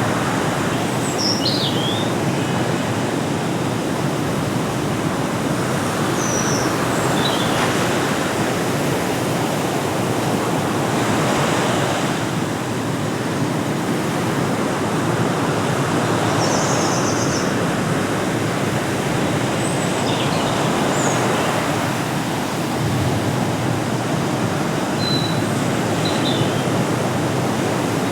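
Steady rushing of sea surf, swelling slightly now and then, with a few short high bird chirps scattered through it.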